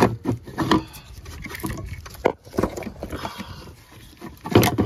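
Plastic clicks, knocks and scraping from an engine control module and its wiring harness connectors being handled and worked loose. The loudest knocks come near the end.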